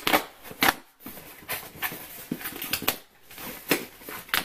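Plastic packaging and air pillows being rummaged through in a cardboard shipping box, crinkling and rustling with irregular sharp snaps.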